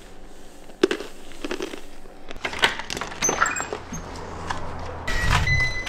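Scattered clicks and knocks, then a steady high-pitched beep that starts near the end and keeps sounding.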